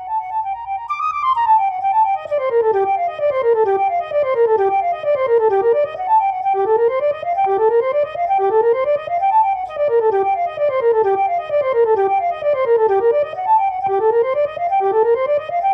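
Flute voice of notation-software playback running a fast solo passage: rapid scale runs sweeping down and up again and again, each run about a second long.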